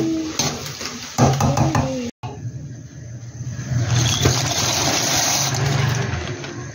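Chopped vegetables and chicken sizzling in a pan as they are stirred with a spatula, then, after a break, water boiling hard in an aluminium pot with an even hiss that grows fuller about four seconds in as dry macaroni is poured in.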